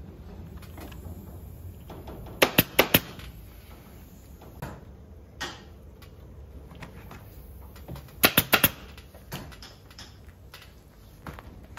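Pneumatic upholstery stapler firing staples into a sofa frame in two quick bursts of four sharp shots, about six seconds apart, with a few fainter clicks between.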